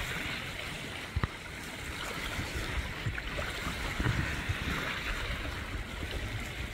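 Choppy reservoir water lapping and splashing in small waves, a steady wash of noise, over a low uneven rumble of wind on the microphone. A single short click about a second in.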